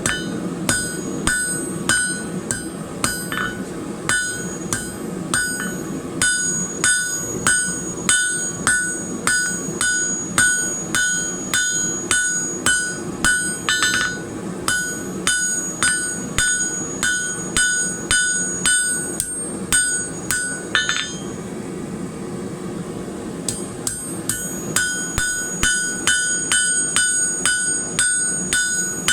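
Blacksmith's hammer striking steel on an anvil, about two ringing blows a second, cleaning up a forged piece. Near the end the blows stop for about two seconds, then resume lighter and quicker.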